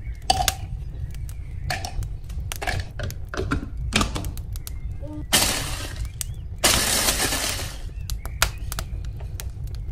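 Dry baked honey-cake layers crackling as they are snapped by hand into a plastic chopper bowl. Then the hand blender's chopper attachment runs in two short pulses, about a second each, grinding the pieces into crumbs.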